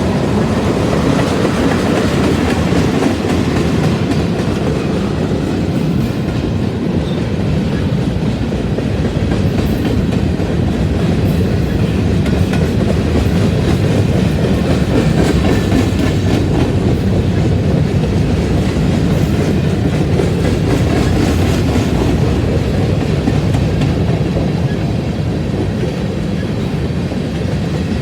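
Freight cars of a manifest train rolling past, a loud, steady rumble of steel wheels on the rails.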